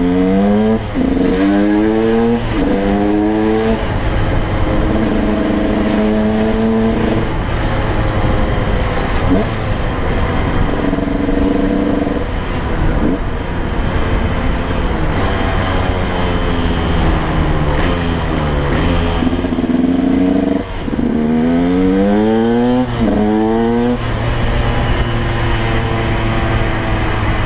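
2006 KTM 125 EXC's two-stroke single-cylinder engine accelerating up through the gears in quick shifts. It cruises at steady revs, slows with falling revs, then pulls up through the gears again near the end, over wind noise on the microphone.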